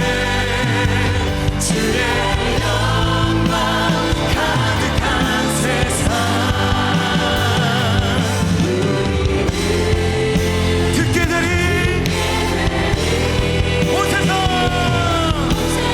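Live contemporary worship band playing with singers, the voices wavering and held over steady accompaniment.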